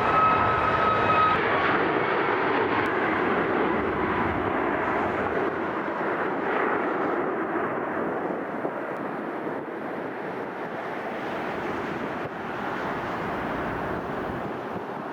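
Airliner's engines running loud, with a steady high whine that stops about a second and a half in, then a broad rumble that slowly fades as the aircraft moves away.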